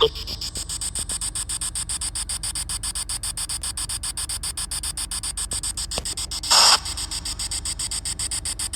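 Spirit box sweeping: static chopped into a rapid, even pulse, with one short louder burst of noise about six and a half seconds in.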